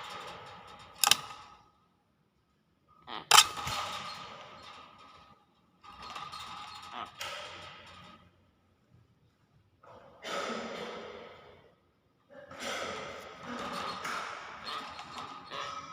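Hill myna (beo) vocalising in about five raspy, breathy bursts with short silences between them, and a sharp click about a second in and a louder one at about three seconds.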